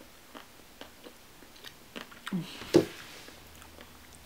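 A person chewing a mouthful of ice cream with chocolate pieces, with small wet mouth clicks spread through it. There is a brief low hum a little past halfway, then a louder sharp click.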